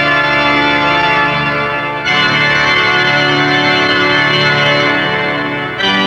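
Background music of sustained held chords, moving to a new chord about two seconds in and again near the end.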